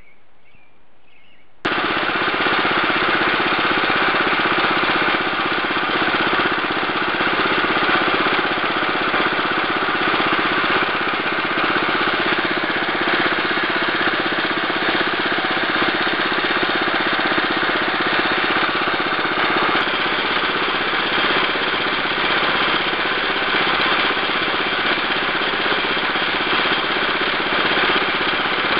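The 8-horsepower single-cylinder engine of a 1965 Wheel Horse 875 hydrostatic garden tractor running steadily. It comes in abruptly about two seconds in.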